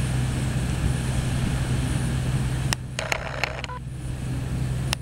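Wind buffeting the camera microphone as a steady low rumble over surf washing onto the beach. About two and a half seconds in a sharp click cuts the rumble down, followed by brief handling clatter, and another click and clatter comes near the end.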